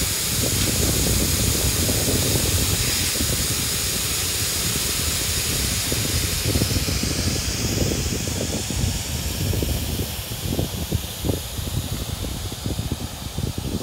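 Electric inflation blower running, pushing air through its hose into an inflatable PVC deck: a steady rushing hiss whose high end thins out about halfway through.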